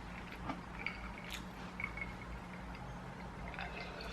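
Quiet room tone: a low steady hum with a few faint, scattered ticks.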